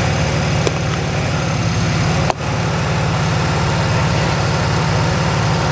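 Rock buggy's engine running steadily at low revs, a deep even rumble with a fast pulse as it crawls slowly over rocks, cut off for an instant about two seconds in.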